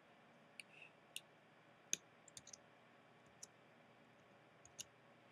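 Scattered computer keyboard and mouse clicks, about ten sharp single clicks at irregular intervals, with a few in quick succession about two seconds in.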